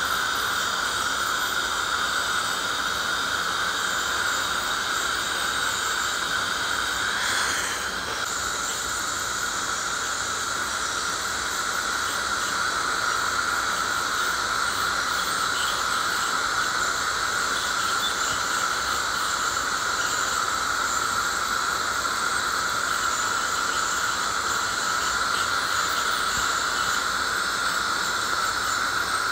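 Woodpecker ultrasonic scaler working along tartar-covered teeth: a steady high-pitched whine over the hiss of its water spray, briefly changing about seven seconds in. It is the sound of heavy calculus and smoker's stain being scaled off.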